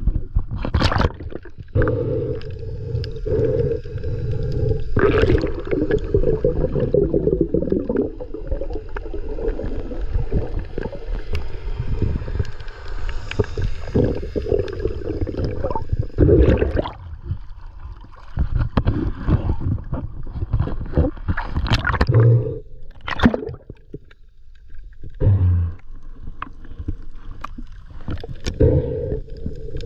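Water gurgling and sloshing around the camera as a snorkeler swims at the surface and under it, with a steady low rumble and many sharp splash-like knocks.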